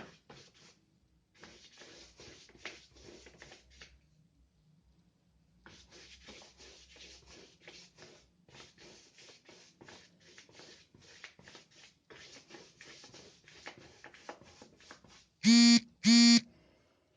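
A wide brush scrubbing gouache onto paper in quick repeated strokes, with a pause about four seconds in. Near the end come two short, loud electronic buzzes in quick succession, the loudest sound here.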